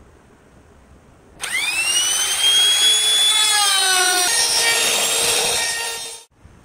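Compact handheld trim router cutting into a cypress block: the motor whine sweeps up quickly to a steady high pitch, then drops lower as the bit bites into the wood, with a rough chip-cutting noise under it. It stops suddenly near the end.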